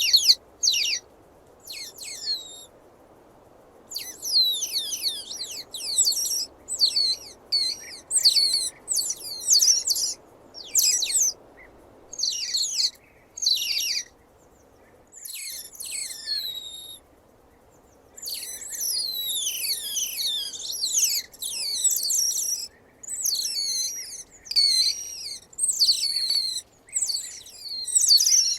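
Otter chirping: rapid series of short, high-pitched calls that slide downward in pitch, coming in bouts with brief pauses between them, over a faint steady hiss.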